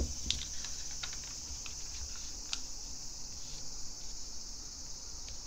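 Origami paper being folded and creased flat by hand: a scattering of light paper clicks and taps, most of them in the first three seconds, over a steady high-pitched hiss.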